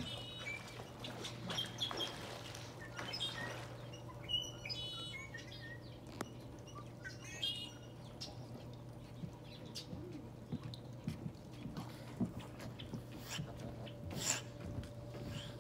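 Otters giving short, high-pitched chirps in scattered clusters every few seconds.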